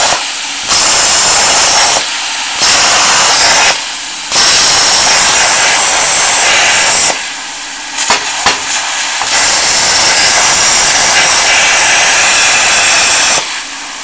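Plasma cutter arc cutting steel plate with a loud rushing hiss that keeps cutting out and starting again while the trigger is held, about four breaks, the longest about two seconds, with a softer hiss of air in the gaps. This intermittent cutting out is the fault the owner puts down to a worn torch trigger switch.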